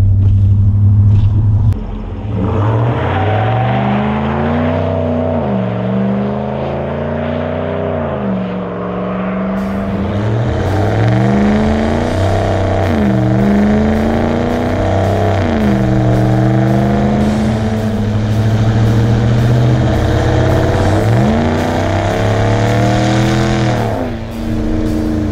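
2020 Ram 1500 Sport pickup's Mopar cat-back exhaust, heard from right at the tailpipe while the truck drives and accelerates. After a steady low drone for the first couple of seconds, the engine note climbs and drops several times as the truck pulls and eases off, then falls away near the end, with road and wind noise beneath it.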